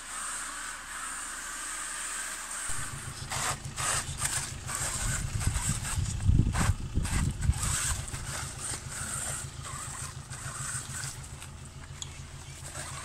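Electric RC truck (WLtoys 12428) running, first a steady whine and hiss from its motor and drivetrain. About three seconds in the sound changes abruptly to a steady low rumble with many short knocks and crunches as the truck drives over rough ground, loudest around the middle.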